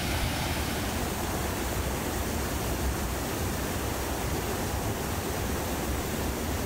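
Mountain stream water flowing, a steady even rush of noise.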